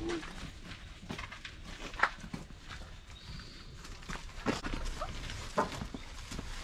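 A few sharp knocks and clatters, about two, four and a half and five and a half seconds in, with footsteps on a dirt campsite as camping gear is carried and handled.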